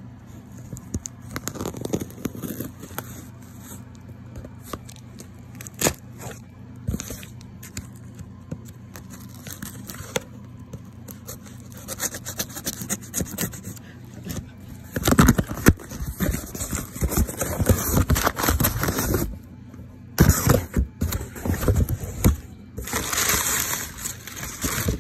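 A knife blade scraping and slicing along the packing tape of a cardboard box, with scattered small clicks. From about halfway through, louder bursts of rustling and crinkling as the flaps are opened and the packed contents are handled.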